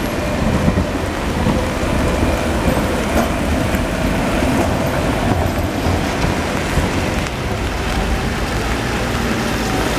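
Street noise on a wet city street: a low-floor articulated tram rolling past and away along the rails, then a city bus creeping in with a steady hiss of wet pavement and traffic.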